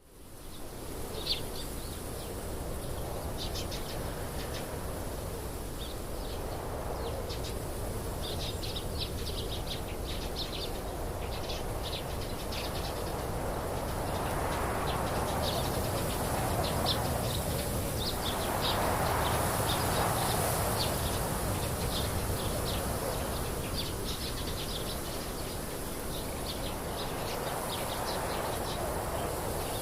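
Small birds chirping in quick, repeated short notes over a steady low background noise, which swells twice in the middle.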